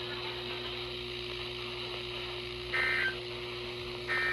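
NOAA weather radio receiver playing dead air between broadcast messages: a steady hiss with a constant low hum, and two short electronic tone bursts about three and four seconds in.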